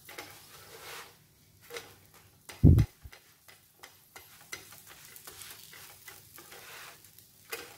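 Slotted spatula pressing and nudging a folded cheese pancake in a nonstick pan, with light clicks and scrapes of the spatula on the pan over a faint frying sizzle. A single dull thump about two and a half seconds in is the loudest sound.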